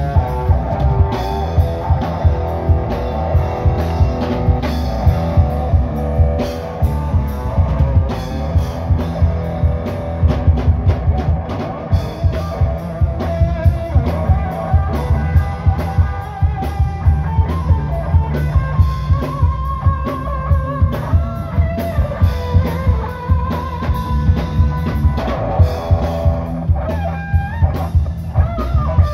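Live rock band playing loudly through a PA: electric guitar, bass guitar and drum kit, with a steady drum beat.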